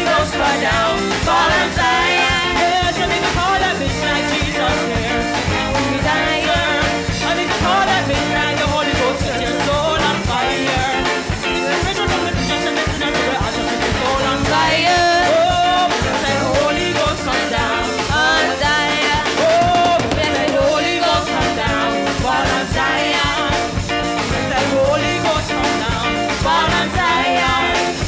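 Live gospel praise-and-worship music: women's voices singing into microphones over a drum kit.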